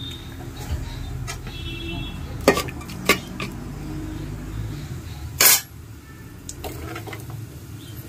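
A metal utensil clinking and knocking against an aluminium cooking pot, with a few sharp strikes; the loudest comes a little past halfway. A low steady hum runs underneath.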